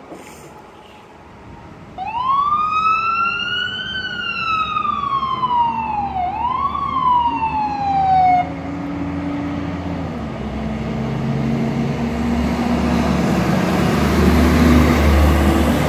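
Emergency vehicle siren wailing: one slow rise and fall, a short second rise, then a fall that cuts off. After it, a large vehicle's engine rumble and road noise grow steadily louder as it approaches.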